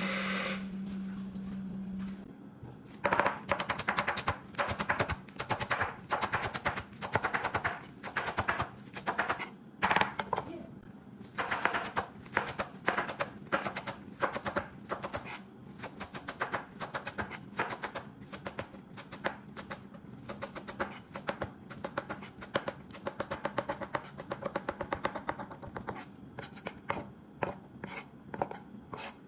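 Chef's knife chopping green onions on a plastic cutting board: fast runs of sharp strikes with brief pauses, starting about three seconds in.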